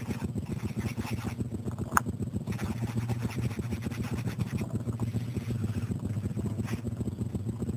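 Black felt-tip marker scratching on sketchpad paper in short strokes, over a steady low hum. One sharp click about two seconds in.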